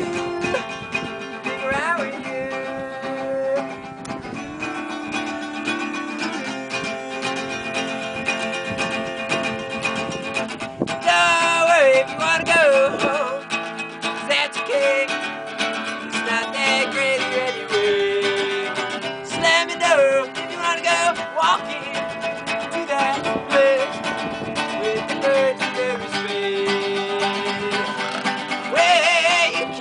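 Acoustic guitar music, a song with held notes and a melody that wavers in pitch at times.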